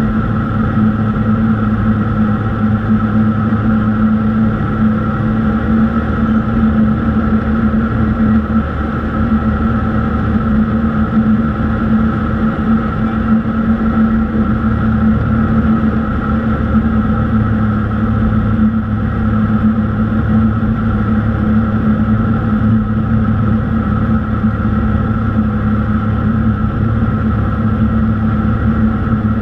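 Cessna 182's single piston engine and propeller running steadily, heard inside the cockpit, on approach to land: a strong constant low hum with a fainter high whine above it and an even rumble beneath.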